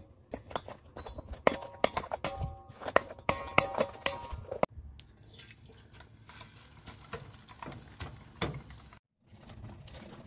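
A utensil stirring wet okonomiyaki batter in a stainless steel bowl, with many sharp metallic clinks that ring briefly against the bowl. About halfway through, this changes abruptly to softer, wet sounds of the batter being poured out onto a pan.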